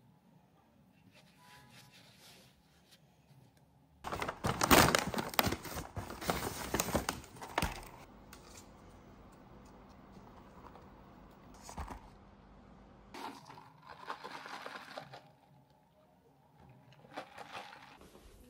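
Close-up handling sounds: faint tapping on a laptop keyboard, then a few seconds of loud crinkling and tearing of packaging, followed by quieter rustling and scattered clicks.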